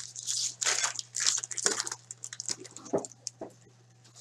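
Crinkling of a hockey card pack's foil wrapper and rustling of cards being handled, in irregular bursts of crackle followed by a few short clicks and snaps.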